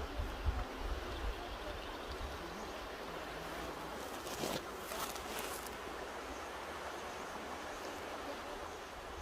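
Mountain river rushing steadily, with a low rumble underneath and a brief brighter hiss about halfway through.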